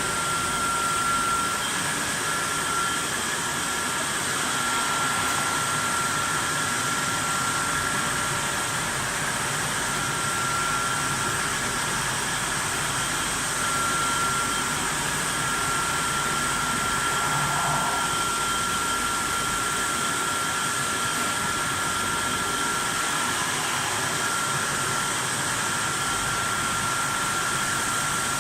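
Vertical flat glass washing machine running steadily: an even hiss of motors and blowers with a thin high whine that drops out now and then.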